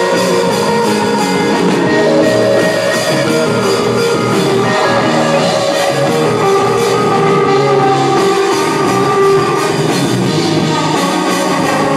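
Live rock band playing loud: electric guitar, drum kit and keyboards, with a steady drum beat.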